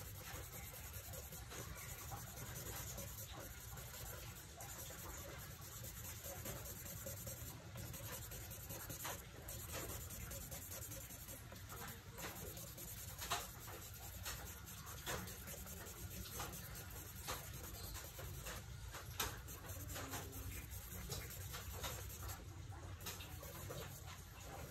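Charcoal stick scratching and rubbing on drawing paper as dark patches are put down for the background, with scattered small taps. A steady low hum runs underneath.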